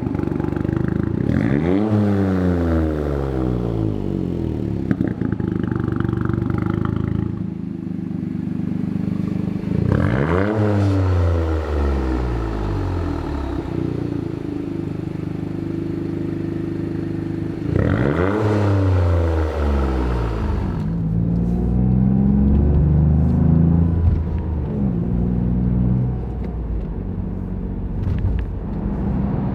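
Toyota GR Yaris's turbocharged three-cylinder engine revved three times through a Milltek non-resonated GPF-back exhaust, each rev rising quickly and falling back to idle, about eight seconds apart. It then idles, with a few smaller changes in engine speed near the end.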